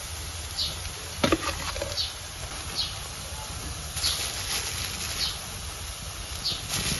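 Metal spoons clinking and scraping against a black iron wok of frying garlic oil, with one sharp clink about a second in and more scraping from about four seconds in as chili flakes are stirred in. A short high chirp recurs about once a second.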